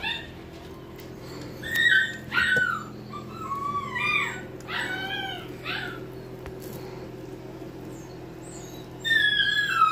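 Husky-type puppy whining: a string of about six short, high, arching whimpers, then one longer whine that falls in pitch near the end.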